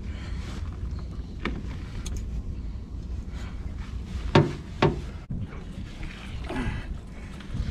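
Knocks on a small fishing boat as gear is handled aboard: a steady low rumble with a few sharp knocks, the two loudest about half a second apart just past the middle.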